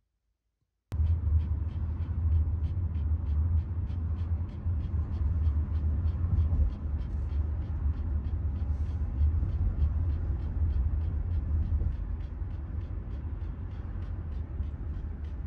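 Shiba Inu panting rapidly, about three breaths a second, over the steady low rumble of a moving car heard from inside the cabin. Both start suddenly about a second in.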